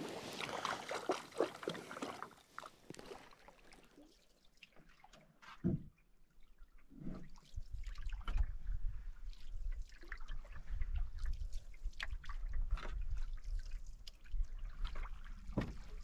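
Lake water trickling and dripping with light splashes at the side of a canoe, a single knock about six seconds in, then a low wind rumble on the microphone under soft drips and lapping.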